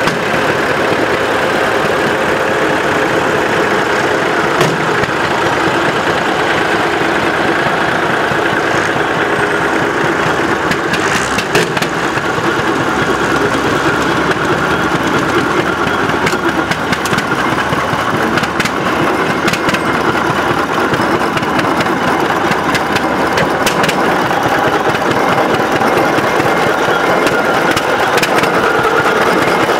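Engine of a vintage steel-wheeled tractor running steadily at low speed as it drives slowly, with scattered sharp clicks through the middle.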